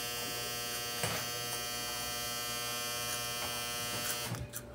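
A steady electric buzz at one unchanging pitch, which cuts off abruptly near the end.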